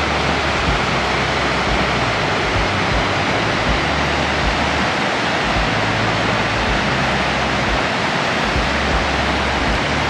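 Gullfoss waterfall rushing: a loud, steady, even wash of falling water.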